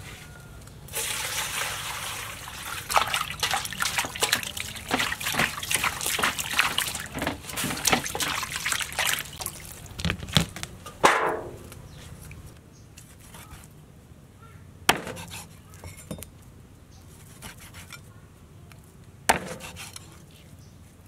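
Water splashing and pouring as food is washed by hand in a basin and rinsed through a plastic colander, ending about eleven seconds in. It is followed by a quieter stretch with two sharp knocks of a cleaver on a wooden chopping board.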